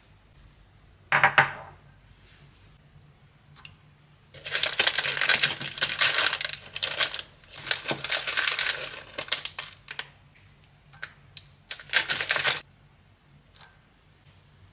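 A sharp knock about a second in, then long bursts of dense clicking and scraping as brown sugar is spooned into a glass bowl of melted butter.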